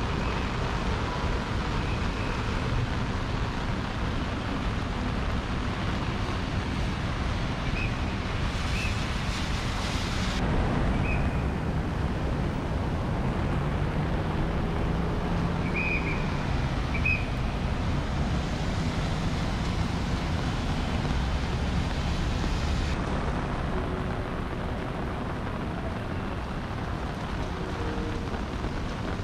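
Steady rain hissing, with a low engine hum from a passing vehicle in the middle.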